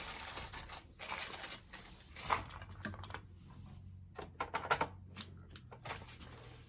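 Spring fastener clips being pushed onto plastic fairing panels by hand: a run of short clicks and brief scraping rustles of plastic and metal.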